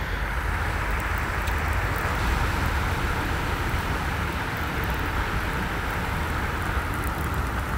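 Steady rain falling on reservoir water, a constant even hiss, with wind rumbling on the microphone.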